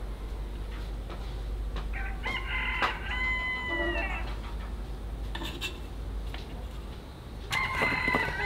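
A rooster crowing twice: one long call about two seconds in, held and falling away at its end, and another starting near the end. A few scattered sharp knocks sound between them.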